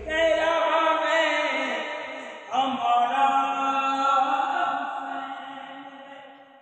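Sung vocal chant with long held notes, a soundtrack laid over the pictures. A new phrase enters about two and a half seconds in, and the chant fades out near the end.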